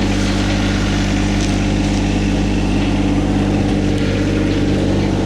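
Engine of a garden tiller running steadily, a constant low hum with an even pitch.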